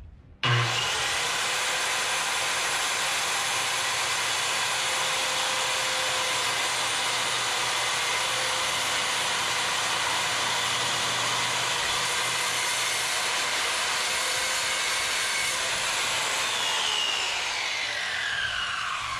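Stanley SC16 corded circular saw starting abruptly and cutting lengthwise through a wooden plank, running steadily for about sixteen seconds. Near the end the trigger is released and the blade winds down with a falling whine.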